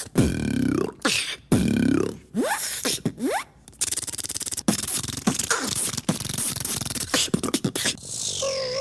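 Beatboxer imitating sound effects with his mouth: a sweeping effect repeated about three times, then a fast run of clicks and buzzes, and near the end a steady wavering electronic-like tone.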